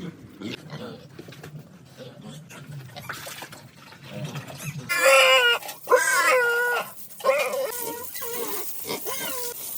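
Pigs grunting, then loud, high squeals that bend and fall in pitch, starting about five seconds in and repeating to the end.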